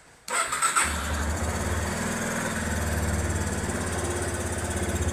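Motorcycle engine started about a quarter second in, with a brief clatter as it catches, then settling into a steady idle. The running engine carries a hiss that the owner puts down to the air filter and its cover, a loose intake.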